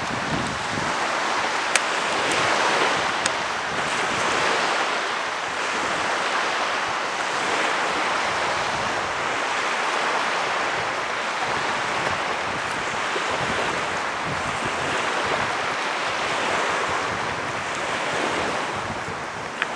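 Steady rushing outdoor noise that swells and fades slowly, with two brief clicks near the start.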